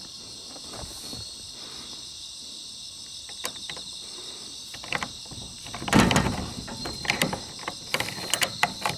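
Insects chirring steadily. About five seconds in come metal clicks and a heavy clunk, then a run of rattling clicks as a combination dial and handle are worked on a lock that won't open, its dial not turning properly.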